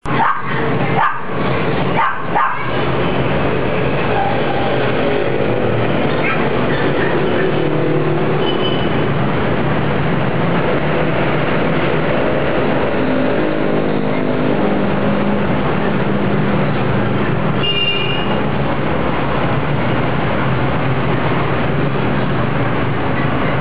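A steady, loud noisy din, with a few brief faint chirps from caged canaries.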